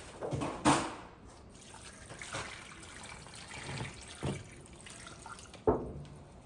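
Thick cooking juices pouring and dripping from a tilted disposable aluminium tray onto meat in another foil tray, with sharp knocks and crinkles as the thin foil trays are handled, one about a second in and another near the end.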